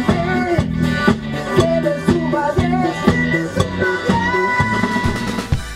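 Rock song playing with a steady drum beat, guitar and a sung lead vocal line, the band's new studio recording, cutting off suddenly near the end.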